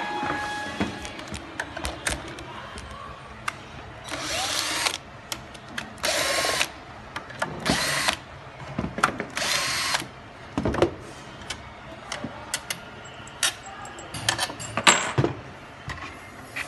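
Cordless drill-driver with a hex bit running in four short bursts, each spinning up and winding down, unscrewing the screws of a metal compressor case. Sharp clicks and knocks of screws and tools come in between.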